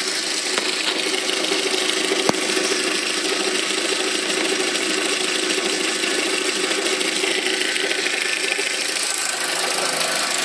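SEAT León Cupra's turbocharged engine running steadily with a whine that the owner takes for turbo whine but has not been able to pinpoint or get fixed. A small click about two seconds in.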